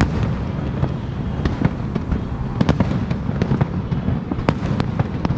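Aerial shell fireworks bursting: a string of irregular sharp bangs and crackles over a continuous low rumble.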